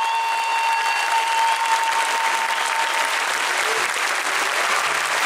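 Large auditorium audience applauding, a dense steady clapping. A held high tone fades out under it over the first two seconds.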